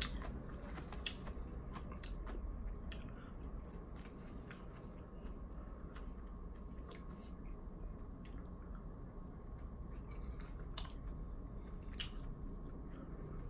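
A person chewing a mouthful of salad close to the microphone, with scattered soft clicks and smacks from the mouth.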